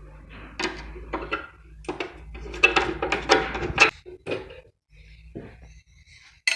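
Metal knocks and rattles from the steel wheel-cover door of a small Ingco bench bandsaw as it is handled and swung open, in a string of short clattering knocks with a louder clank at the very end.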